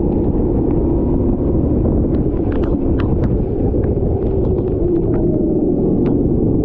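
Rental kart engine running under way, its note sagging and then climbing again as the revs drop and pick up, with a dense rumble beneath and scattered sharp ticks throughout.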